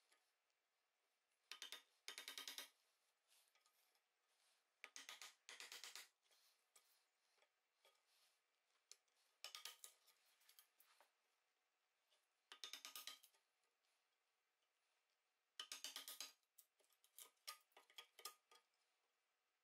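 Slim steel hand tool scraping in the groove at the end of a softwood board: short rasping strokes, singly or in pairs every few seconds, with a flurry of smaller strokes near the end.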